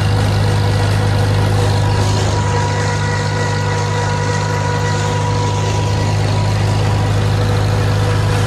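Farmall M tractor's four-cylinder engine running steadily.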